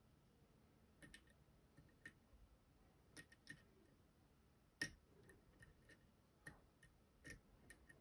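Faint, irregular metallic clicks from a lock pick and tension wrench working the pins of a Goal pin tumbler lock, hunting for the last pin stuck in the plug's milling. A dozen or so light ticks, with one sharper click about halfway through.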